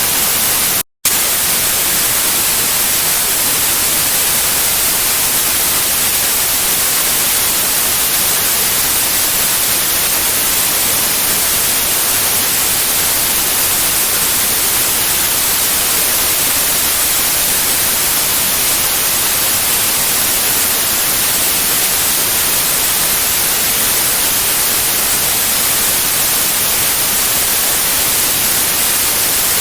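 Steady white noise, an even hiss with no pattern in it, strongest in the highs. It cuts out to silence for a split second about a second in, then carries on unchanged.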